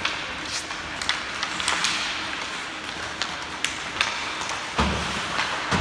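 Ice hockey in play: skate blades scraping the ice and hockey sticks clicking against the puck and each other, with a heavy thud near the end.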